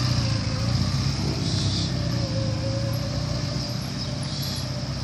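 Small cruiser motorcycle engine running steadily as the bike rides off at low speed, gradually getting a little quieter as it moves away.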